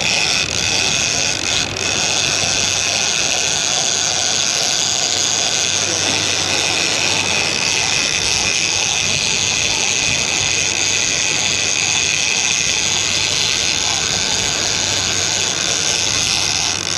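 Fishing reel buzzing steadily, a ratchet-like whirr of line running off against the drag as a hooked fish runs.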